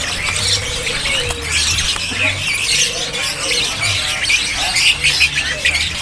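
Many caged songbirds chirping and chattering at once, a dense overlapping twitter of high calls.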